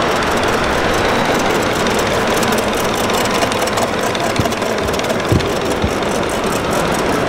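Live-steam scale model traction engine running as it drives along, a steady hiss of steam with quick, even exhaust beats and a couple of light knocks in the second half.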